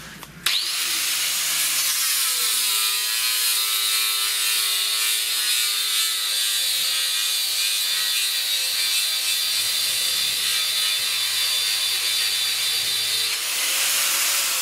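Angle grinder with a homemade double-thickness cardboard disc starting up about half a second in, its whine climbing as it spins up. It then grinds steadily into a wooden bar, the cardboard cutting by friction. Near the end the sound changes as the disc comes out of the cut and spins free.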